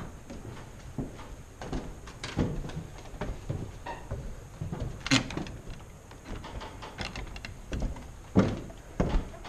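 Footsteps on old wooden floorboards and stairs, boards knocking and thudding underfoot in an uneven rhythm, with the sharpest knocks about five seconds in and again near the end.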